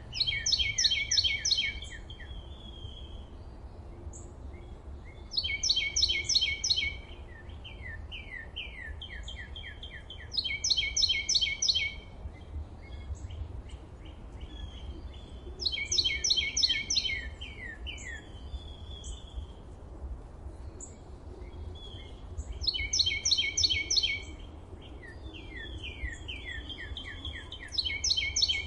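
A songbird singing loud phrases of rapid, evenly repeated notes, each about a second and a half long, about every five seconds, with quieter bird chirps between phrases. A low steady rumble runs underneath.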